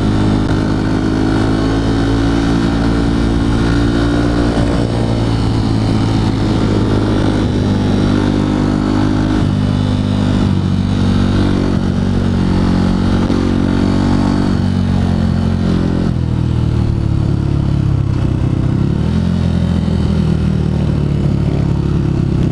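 Honda CRF150L's single-cylinder four-stroke engine running while riding, holding a steady note, then dropping lower about two-thirds of the way through and rising and falling again near the end.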